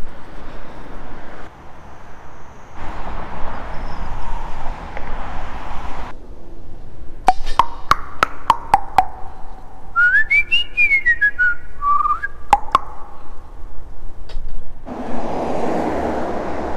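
Rushing wind and traffic noise from riding a bicycle beside a highway, broken by several sharp clicks. About ten seconds in comes a short whistled tune of quick notes that climb and then fall back.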